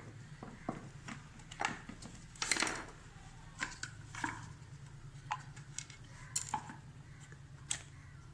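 Irregular metal clicks, knocks and clinks of hand tools and parts while a washing machine gearbox is being taken apart, with one longer scraping noise about two and a half seconds in, over a low steady hum.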